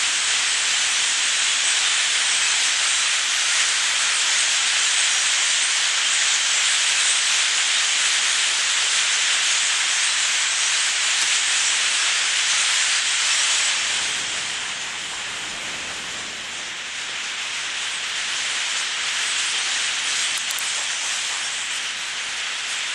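Thousands of blackbirds in a massed flock calling all at once, a dense, even din that sounds like rain; it eases a little about 14 seconds in, then builds again.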